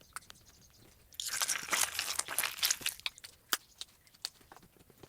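Orange slime being squished and pressed by hand: about a second in, a dense stretch of crackling and popping lasting about two seconds, then scattered single sticky pops and clicks.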